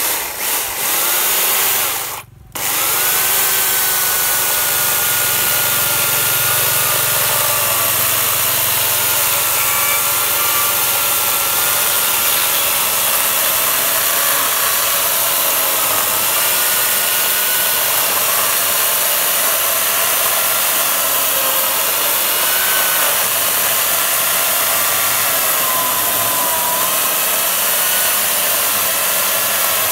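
Makita UC4041A 1800 W electric chainsaw cutting through a thick log. The motor stops briefly about two seconds in, then runs steadily, its whine wavering in pitch as the chain bites into the wood.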